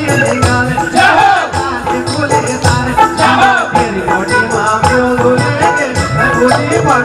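Loud live Garhwali folk music. A busy percussion rhythm with rattling strokes plays under sustained melodic notes.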